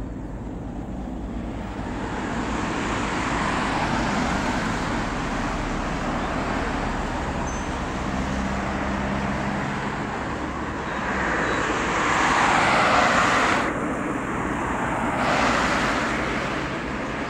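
Road traffic: cars driving past on the road, tyre and engine noise swelling and fading, with two louder pass-bys near the end.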